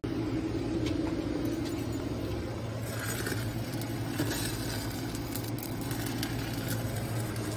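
A steady, low mechanical drone of a small engine or machine running, with scattered light clicks and crackles on top, most of them about halfway through.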